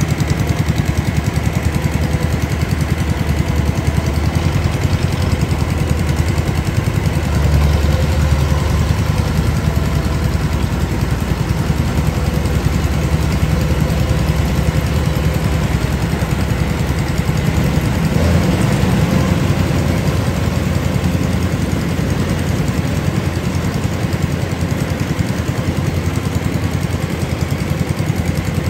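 Kubota combine harvester's diesel engine running steadily under load as it cuts and threshes rice. It grows louder briefly about a quarter of the way in and again just past halfway.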